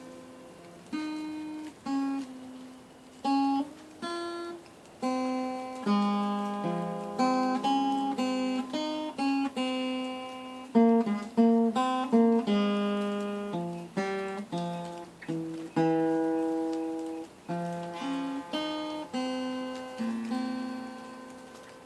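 Acoustic guitar played solo: chords and single notes plucked one at a time and left to ring out. It gets busier and louder in the middle with a run of quicker notes.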